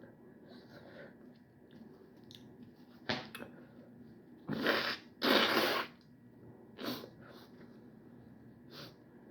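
A person blowing her nose hard twice in quick succession, about halfway through, with shorter sniffs or snorts before and after; her nose is running from very spicy food.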